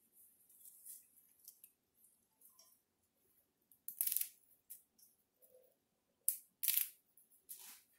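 Moringa leaves being plucked from their stems by hand: a series of short, crisp rustles and snaps, loudest about four seconds in and twice more near the end.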